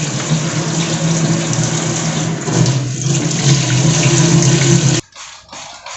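Tap water running steadily into a kitchen sink, then cutting off suddenly about five seconds in.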